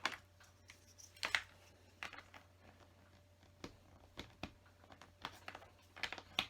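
Scattered light clicks and taps of plastic LEGO bricks being handled while someone tries to pry out a wrongly placed piece. Faint, with a steady low hum underneath.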